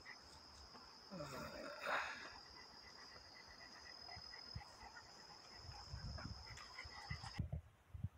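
Insects chirring in the trail-side vegetation: a faint, steady high-pitched trill that cuts off suddenly about seven seconds in. Soft footsteps on the trail can be heard toward the end.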